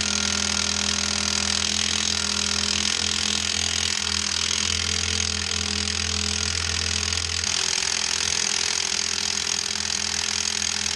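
Milwaukee cordless impact wrench hammering nonstop on a rusted, heat-smoking U-bolt nut to break it loose. It is a steady, loud rattle, and its low hum drops off about two-thirds of the way through.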